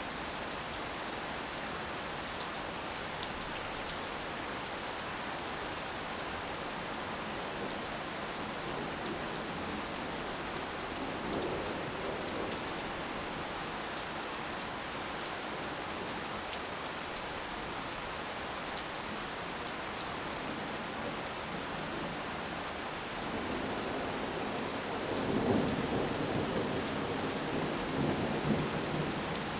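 Heavy rain falling steadily on a front yard. A low rumble of thunder swells briefly about a third of the way in and rolls more strongly through the last few seconds.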